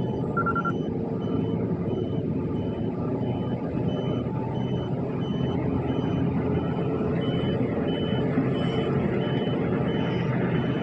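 Steady low rumble of a car running, with a faint high beep repeating at an even pace.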